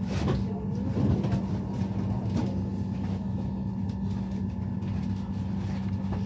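Steady electrical hum of a commuter train standing at a platform, heard inside the carriage, with a couple of brief knocks near the start.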